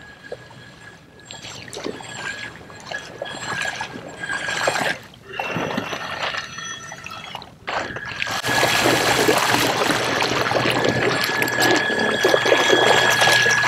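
Water splashing and trickling from a kayak's bow wave and wake as it is pushed along by a Torqeedo Ultralight 403 electric outboard, much louder from about eight seconds in as the kayak draws close. A thin steady high tone runs throughout.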